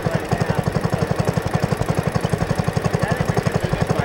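Engine running steadily with a fast, even beat.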